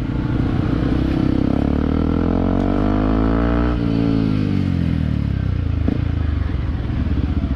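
Yamaha WR155 single-cylinder four-stroke engine running through an aftermarket Gordon exhaust. It rises steadily in pitch over about two seconds, then drops back from near the middle as the throttle comes off.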